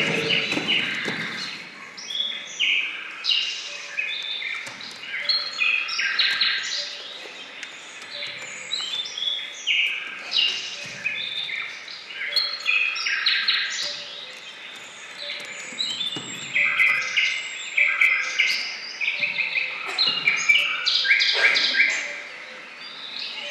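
Birdsong: many short chirps and trills from several birds overlapping, played as a recorded sound effect for the stage. The music before it fades out in the first second or so.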